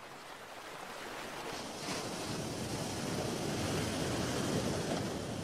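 Ocean surf washing over rocks and breaking on a beach: a steady rushing that swells over the first couple of seconds and then holds.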